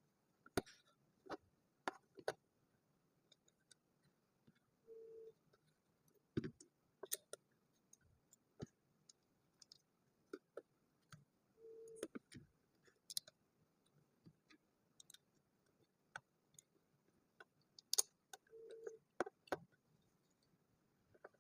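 Faint, irregular clicks of small plastic interlocking building bricks being handled and pressed together. A short low beep sounds about every seven seconds.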